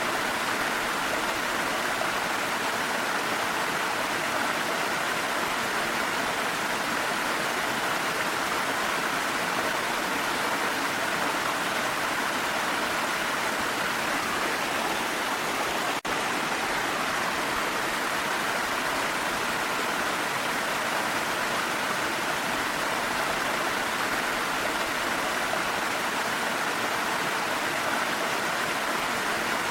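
Waterfall rushing steadily, mixed with rain, with a momentary break about sixteen seconds in.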